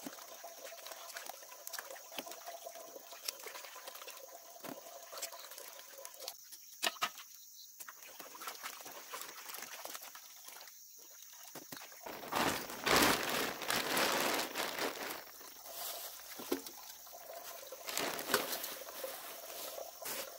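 Water sloshing and trickling as fresh turmeric roots are washed in a basin, with light clicks of roots dropped into a woven bamboo basket. A louder stretch of water noise comes about twelve seconds in and lasts a few seconds.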